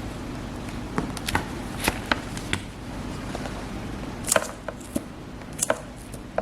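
Handling of a new tablet and its packaging: irregular light clicks and taps, the sharpest a little past the middle, over a steady low hum.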